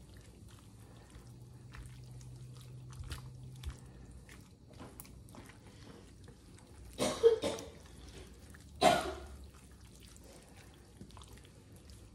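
Silicone spatula stirring and scraping a thick pasta, chicken and broccoli mixture in a ceramic baking dish, giving soft wet squishes and light scrapes. About seven seconds in and again about nine seconds in comes a short cough, these two being the loudest sounds.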